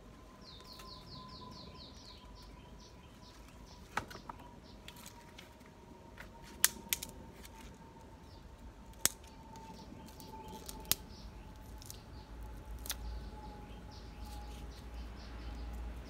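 Six or so sharp clicks and snaps, scattered and spaced a second or two apart, from a bamboo garden stake being handled and worked. A bird gives a rapid run of high chirps for about the first three seconds.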